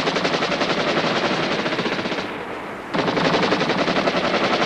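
Automatic gunfire in rapid bursts, about ten shots a second: one burst breaks off a little after two seconds in, and another starts about a second later.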